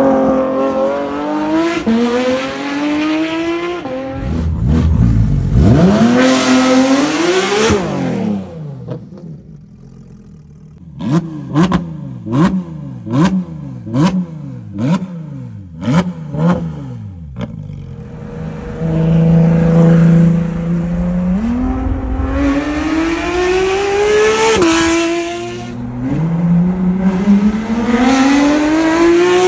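Porsche 992 GT3 RS naturally aspirated flat-six through a full aftermarket RSR exhaust, accelerating hard with the revs climbing and dropping at each upshift. In the middle it is blipped about eight times in quick succession while standing still, then settles to idle before more hard pulls.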